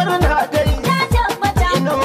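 Afrobeat-style African pop music with a steady beat: deep bass drum hits that drop in pitch about twice a second, under percussion and a melody.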